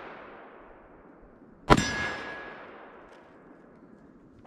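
A single shot from a Kimber K6s revolver with a 4-inch barrel, firing 158-grain .357 Magnum, comes a little under two seconds in and echoes away over about two seconds. The fading echo of the shot before it is heard at the start.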